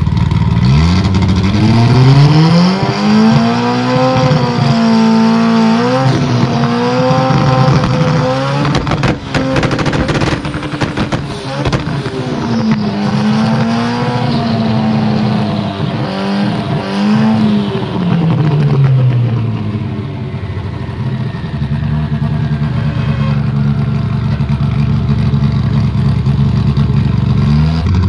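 Drag race car's engine revving in the staging lanes. The pitch climbs in the first two seconds and holds high with wavering revs, turns rougher and crackling about a third of the way in, climbs again, then falls back and runs steadily until a fresh rising rev starts right at the end.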